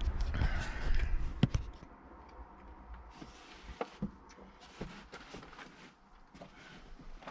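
Rumbling handling noise for the first second and a half, then scattered light clicks and knocks of plastic parts as the heater blower motor is pressed and pulled loose under the dashboard.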